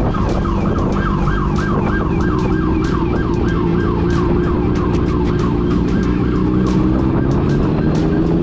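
Emergency-vehicle siren in a fast yelp, its pitch sweeping up and down about three times a second and fading toward the end, over steady road-vehicle engine noise.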